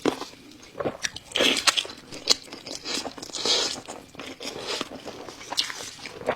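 A person biting and chewing crunchy food, with irregular sharp crunches and two longer crunching chews, about a second and a half in and around three and a half seconds in.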